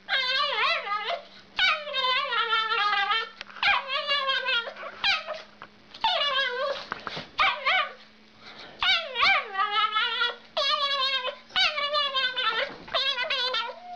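Small dog 'singing': a run of about ten long, wavering, high-pitched yowls, each a second or so, many sliding down in pitch at the end, with short breaks between.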